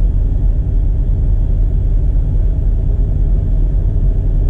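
Steady low rumble of a semi truck's idling engine, heard from inside the sleeper cab.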